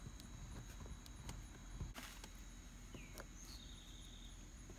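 A few faint scattered clicks and scrapes of a plastic trim pry tool working at the plastic clip ring at the base of a Porsche Boxster 986's door pull handle. The clearest click is about two seconds in.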